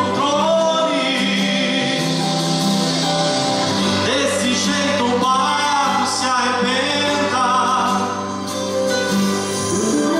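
A man singing a gospel hymn in Portuguese into a microphone, with wavering held notes over sustained instrumental accompaniment.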